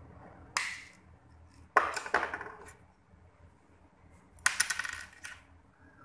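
Hand-held RJ45 crimping tool clicking and clattering in three short bursts: a single sharp snap about half a second in, then two rattly runs of quick clicks around two seconds and around four and a half seconds in, as the untwisted cable wires are trimmed to length with the tool.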